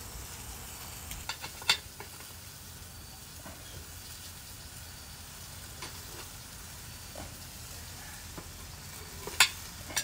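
Hot Italian sausages and flour tortillas sizzling steadily on a charcoal kettle grill. A few sharp clicks of metal tongs on the grate come about a second and a half in, and a louder one near the end.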